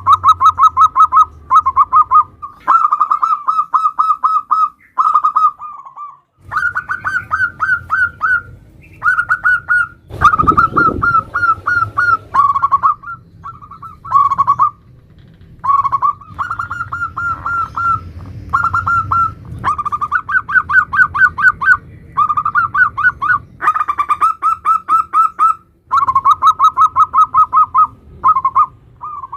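Zebra doves (perkutut) singing in the 'nutut' style: rapid stuttering runs of short cooing notes in phrases of one to two seconds, repeated over and over with brief pauses. A low thump sounds about ten seconds in.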